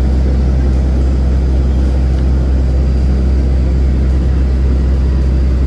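Airport apron bus running, a steady low engine rumble heard from inside the bus.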